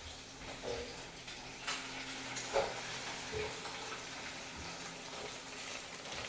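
Food sizzling steadily in a hot pan, with scattered small clicks.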